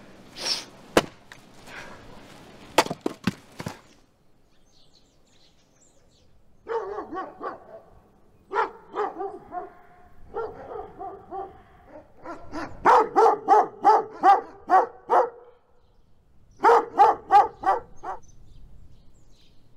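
A few sharp wooden knocks and clacks in the first seconds, like split firewood logs being handled and stacked. Then, from about seven seconds in, a dog barking repeatedly in quick runs of several barks, loudest in the last runs.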